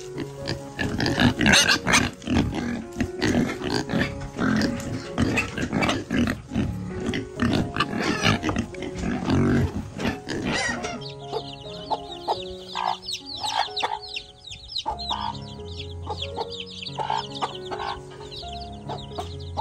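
Pigs squealing and grunting loudly over background music. About halfway through the pigs fall quiet and high, rapid chirping carries on with the music.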